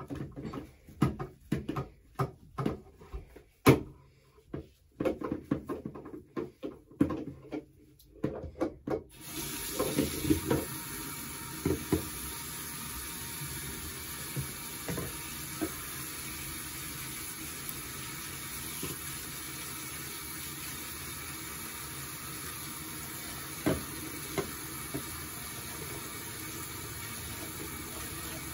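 A few seconds of small clicks and handling knocks, then about nine seconds in a bathroom sink tap comes on and runs steadily, with an occasional splash or knock, as conditioner is rinsed out of a doll's hair.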